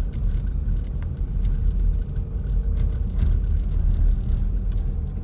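Steady low rumble of a V8 Jeep Grand Cherokee heard from inside the cabin as it crawls in four-wheel drive over a snowy mountain road: engine and tyre noise, with a faint steady hum over it.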